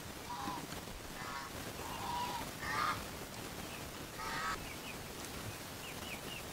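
Farmyard fowl calling: about five short calls in the first four and a half seconds, then a few faint high chirps from a small bird near the end.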